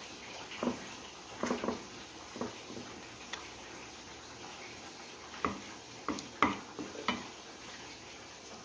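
A serving spoon knocking and scraping against cookware while thick cream sauce is scooped and spread over fried potato slices in a glass baking dish. About nine short knocks come in two loose clusters: one in the first few seconds and another a little past the middle.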